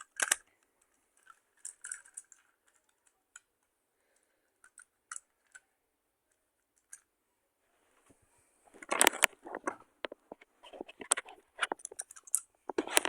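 Scattered light clicks and taps, then denser runs of hard clicking and clattering about nine seconds in and again near the end, like small hard objects being handled.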